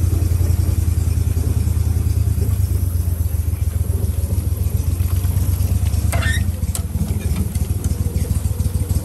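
Gator Tail shallow-water mud motor on an aluminum crawfish skiff running at low speed, a steady low hum that eases a little past halfway as the boat reaches a trap. A brief squeak and a click come just after it eases.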